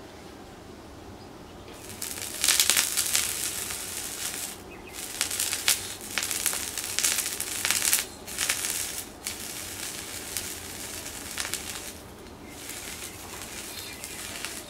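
Crinkling and crunching as metal kitchen tongs break through a thin, crumpled aluminium layer to dig a sausage out from under it. The sound comes in irregular bursts that start about two seconds in and die away near the end.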